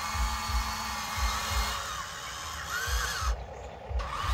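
Small electric motors of a Huina remote-control toy excavator whining as it drives on its tracks and moves its boom. The whine glides up and down in pitch, stops briefly a little past three seconds and starts again near the end.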